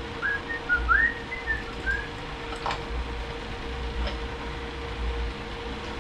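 A person whistling a few short notes in the first two seconds, over a steady hum, followed by a couple of light clicks.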